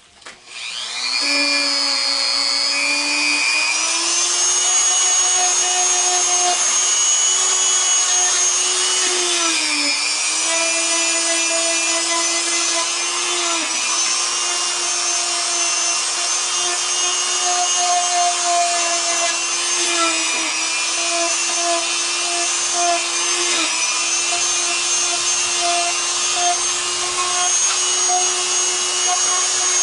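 Dremel rotary tool with a white-rouge buffing tip switched on and spinning up, then running with a steady high whine that dips briefly in pitch now and then as the tip is pressed against the edge of a kydex pouch. The edges are being burnished to take out scrape and sandpaper marks.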